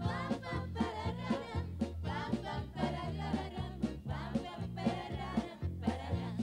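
A live stage band playing an upbeat number, with a stepping bass line under a steady drum beat.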